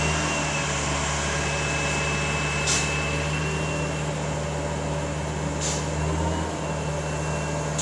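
Steady hum of running machinery with a faint high whistle over it, and two brief hisses, about three seconds in and again near six seconds.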